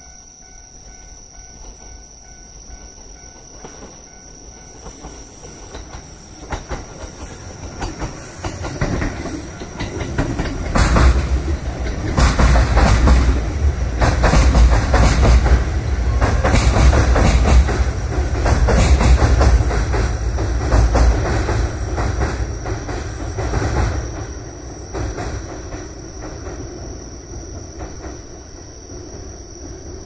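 Kintetsu Ikoma Line electric train crossing a railway bridge. The rumble builds over about ten seconds, becomes loud with a rapid clickety-clack of wheels over rail joints for roughly the middle half, then fades as the train moves away.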